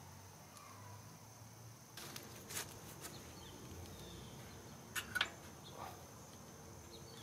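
Quiet outdoor background with a faint, steady, high insect drone, broken by a few short clicks and rustles about two seconds and five seconds in.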